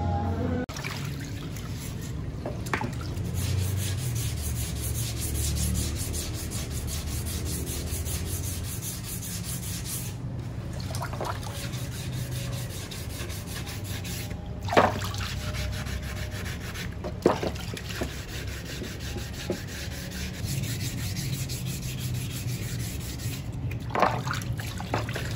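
A fiber helmet shell being wet-sanded by hand at a water trough: quick, continuous rubbing strokes over the shell, smoothing it down, with a few sharp short knocks in the second half.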